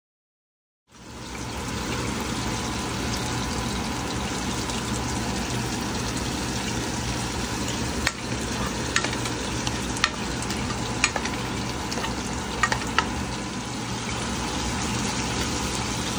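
Sliced onions sizzling steadily in a non-stick saucepan, starting after about a second of silence. A spatula stirring them knocks against the pan in several sharp clicks about halfway through.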